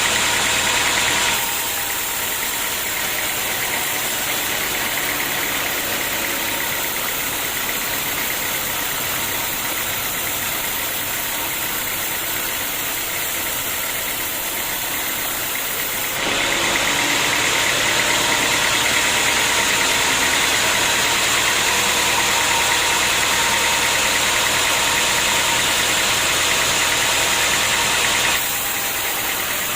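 Sawmill machinery running steadily. The level steps down just after the start, steps up again about halfway through, and drops near the end.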